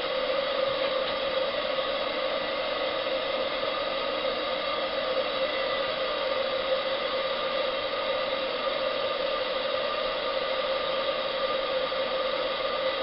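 Pendle 28mm brass butane gas burner running turned up under a model live-steam boiler: a steady rushing hiss of the flame with a faint hum in it, unchanging throughout. The burner is heating the boiler up from cold.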